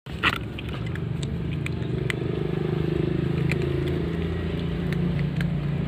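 Cats chewing dry kibble: scattered sharp crunching clicks, the loudest just after the start, over a steady low motor hum.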